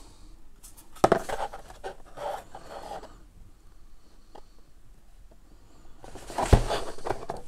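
Cardboard box packaging being handled, the printed cardboard insert and paper leaflet rubbing and scraping. There is a rustle about a second in, a quieter spell with a few light clicks, then a louder scrape with a sharp knock near the end.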